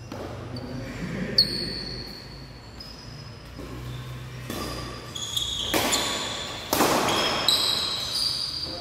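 Sports shoes squeaking on the badminton court floor in a large hall, with a couple of louder racket-and-shuttlecock hits past the middle.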